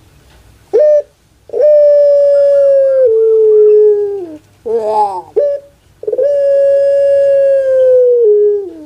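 Puter pelung, a long-voiced singing dove (Streptopelia risoria), giving its loud drawn-out call. A short note about a second in is followed by a long held coo that steps down in pitch partway, then a quick rolling, falling gurgle. A second long held coo follows and drops in pitch at the end.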